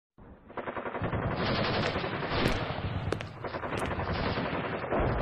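Machine-gun fire sound effect: rapid, continuous automatic bursts that fade in, grow loud about a second in and dip briefly a little past the middle, with a few sharp high cracks among them.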